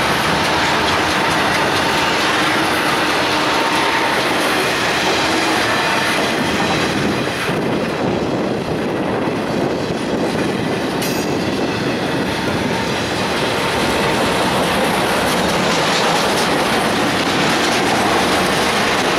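Intermodal freight cars loaded with trailers and containers rolling past at speed: a loud, steady noise of steel wheels on the rails. A faint steady whine runs over the first few seconds.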